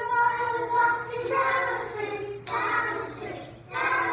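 A class of young children singing a song together in unison, with a few sharp taps mixed in, the loudest about halfway through.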